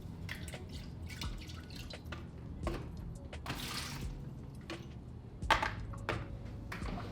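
Water dripping, with scattered light clicks and knocks from handling a cordless electric kettle and a louder knock about five and a half seconds in.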